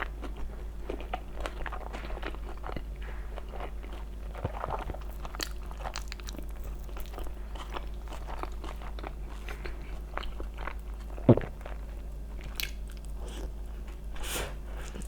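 Close-miked chewing and crunching of food, many short crisp bites and crackles in a row, typical of biting into pizza crust. One much louder sharp knock or crunch comes about eleven seconds in.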